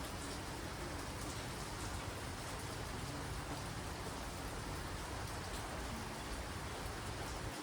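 Steady monsoon rain falling, an even hiss with faint individual drops and a low rumble underneath that drops away at the very end.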